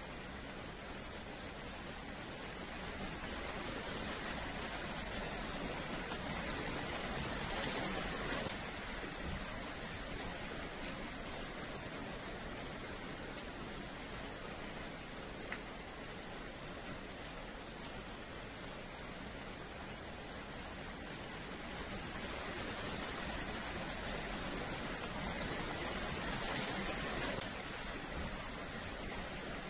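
Steady rain falling on wet paving. It swells louder twice and each time drops back suddenly.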